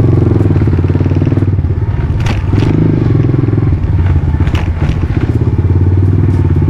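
Motorcycle engine running at low road speed, its firing pulses throbbing steadily, with a couple of sharp knocks about two seconds in and again past four seconds.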